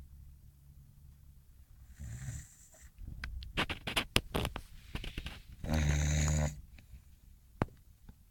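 An English bulldog snoring in its sleep: a short breathy snore about two seconds in, a run of sharp clicks and smacks, then one loud rattling snore about six seconds in, with a single click near the end.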